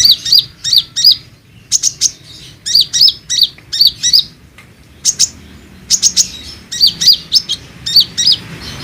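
Olive-backed sunbird (konin) singing. Quick, sharp, high chirps come in clusters of three or four, with short pauses between the clusters.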